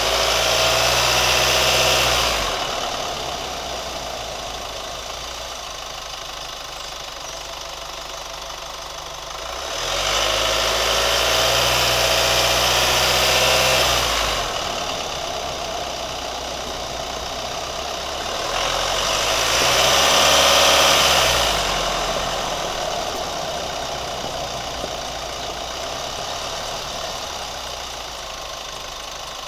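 Chevrolet Colorado pickup engine idling and being revved three times. The revs are held until about 2.5 s in, again from about 10 to 14 s, and a shorter rise and fall comes around 20 s, each settling back to idle. The truck is new, and the owner is listening for a ticking noise.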